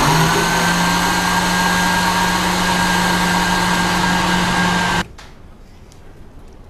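Electric blender running steadily as it grinds the mung-bean filling, a constant motor hum and whine, then switched off abruptly about five seconds in.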